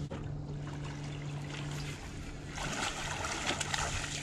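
A small catfish splashing at the water's surface as it is reeled in beside the boat, a rushing, splashy noise that starts about two and a half seconds in, over a steady low hum.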